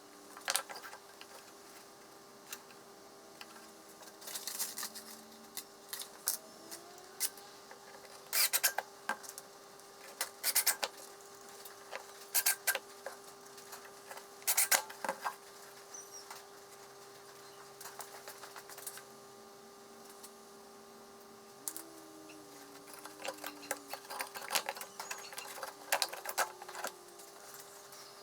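Small parts and hand tools being handled and fitted: scattered clicks and clinks in irregular clusters, over a steady faint hum.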